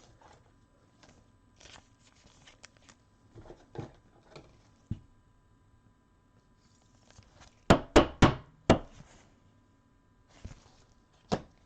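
Trading cards and plastic card holders being handled: soft scrapes and rustles, with a quick run of sharp clicks about eight seconds in and another click near the end.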